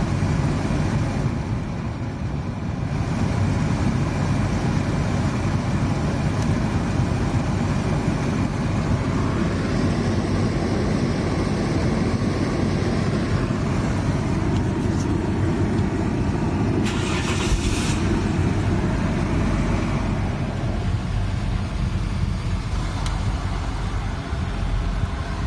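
Holden VY Commodore's engine idling inside the cabin with the climate-control fan blowing steadily, the air being sent out of the windshield vents. A brief hiss about seventeen seconds in.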